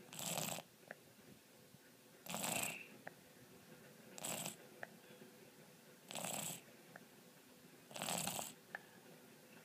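Snoring: five noisy snores, each about half a second long, spaced about two seconds apart, with faint little clicks in between.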